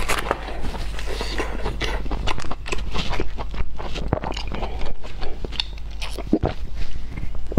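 Close-miked chewing of soft, fatty lamb offal: many quick wet smacks and clicks of the mouth. Near the end there are a few stronger, lower gulping sounds as she drinks from a glass.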